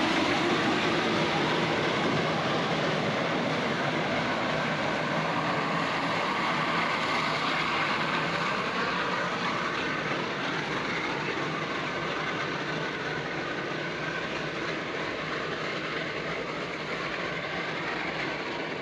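Narrow-gauge steam train rolling along the track and pulling away, its running noise slowly fading with distance.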